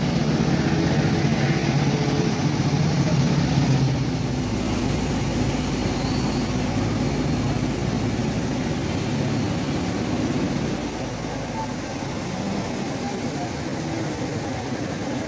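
City street ambience: steady traffic noise with people's voices. A lower, pitched engine-like hum is strongest in the first four seconds, then eases a little.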